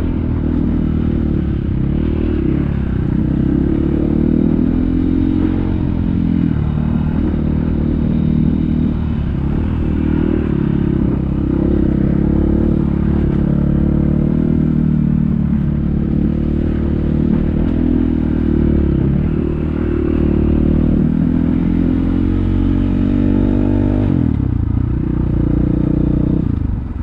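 Off-road vehicle engine running continuously under varying throttle, its revs rising and falling, with a clattering, scraping undertone. Near the end the revs climb briefly and then drop.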